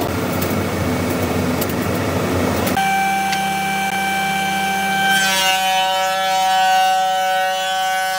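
A wide-belt sanding machine runs with an even rushing noise. About three seconds in this gives way to the steady high whine of an electric belt sander clamped to a bench. From about five seconds in, a board's edge is pressed against the running belt, adding a hissing rasp and a denser whine.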